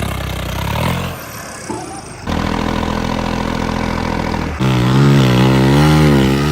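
Vehicle engines running and revving in short spliced clips that change abruptly every second or two. Near the end an engine's pitch swings up and down as it is revved.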